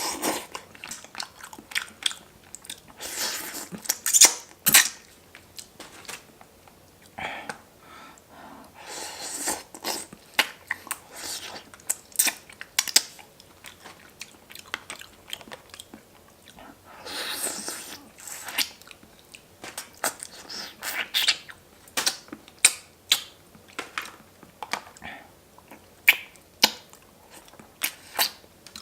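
Close-miked eating of pork bone hangover soup: a steady run of chewing and biting with sharp crunchy clicks, broken three times by longer hissing stretches.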